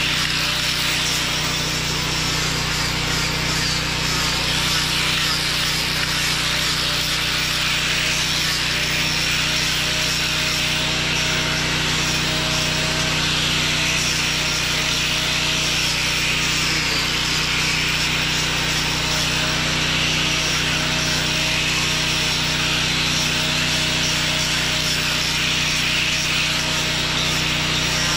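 Power sander running steadily against carved wood, a continuous sanding hiss with a slightly wavering motor whine, over the steady low hum of a portable generator's engine.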